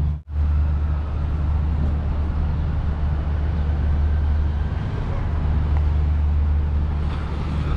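Steady low rumble of city traffic noise, broken by a brief dropout just after the start.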